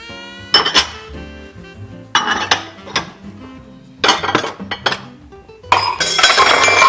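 Bowls clattering and clinking as they are taken out and stacked into a cabinet, in four or five separate bursts, the last near the end longest and loudest, over light background music.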